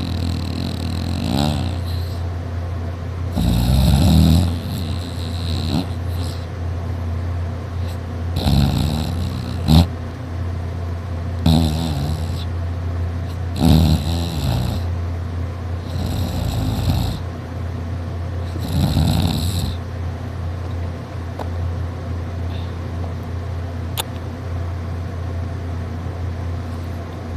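A man snoring in his sleep: roughly seven snores, one every two to three seconds, over a steady low hum. The snores die away about twenty seconds in.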